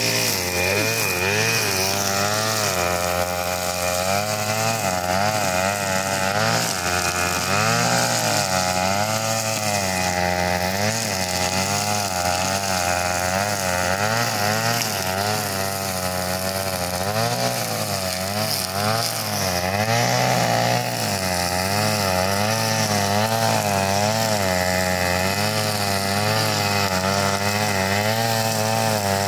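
Wheeled brush cutter's small petrol engine running at cutting speed, its pitch rising and falling again and again as the cutting head works through thick grass.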